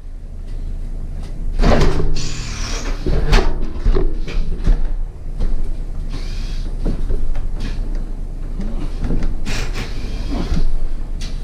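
Irregular knocks, clunks and scraping as a heavy cast iron bathtub is shifted and levered on straps and a wooden 2x4, over a steady low hum.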